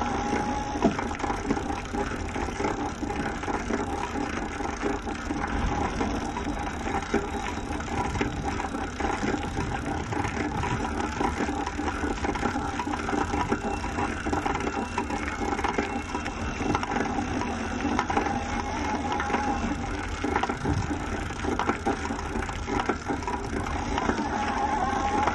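A husky-drawn mushing cart, a modified bicycle on fat tyres, rolling along a dirt trail: a steady rattle and clatter of the frame and wheels over the rough ground, with a constant patter of small clicks.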